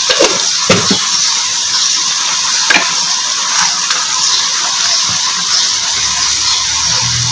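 Chicken and onions sizzling steadily in hot oil in a steel karahi. A wooden spoon knocks against the pan a few times in the first second and once more about three seconds in.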